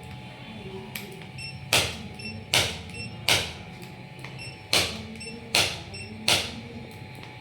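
Background music with a repeating beat: three sharp clap-like hits a little under a second apart, then a pause, over a steady low bass.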